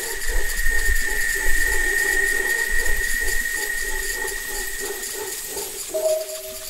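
Field recording of calling insects: a steady high drone with faster pulsing calls under it and a low rumble. About six seconds in, a sustained musical tone comes in.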